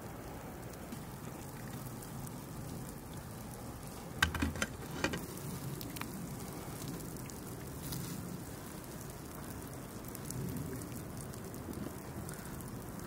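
Pot of beans and lentils cooking with a steady low bubbling hiss, with a few sharp knocks about four to five seconds in and another near eight seconds.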